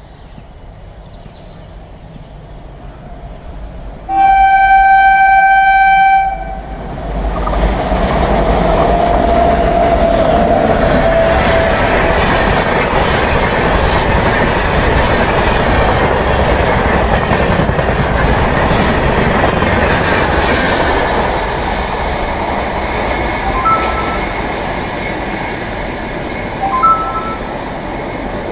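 Indian Railways WAP-7 electric locomotive sounding its horn in one steady blast of about two seconds as the express approaches. About seven seconds in, the locomotive and its passenger coaches pass at full speed in a loud rush of wheels on rail, which eases off as the train draws away.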